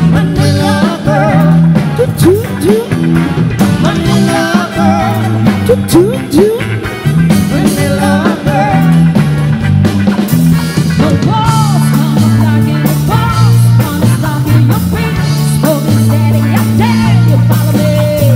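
Live band playing amplified pop-rock, with electric guitar, keyboard, bass and drums under a sung melody line.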